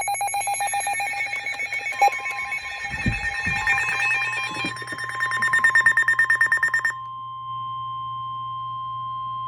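Weather alert radio alarm: rapidly pulsing electronic beeps over a steady warning tone just above 1 kHz, the NOAA Weather Radio warning alarm that comes before a new warning is read. The beeping stops about seven seconds in, leaving the steady tone.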